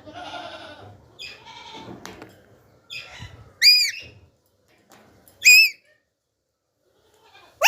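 Alexandrine parakeet calling: raspy chatter for the first two seconds, then two loud, shrill screeches about two seconds apart, each rising and falling in pitch, with a third starting at the very end.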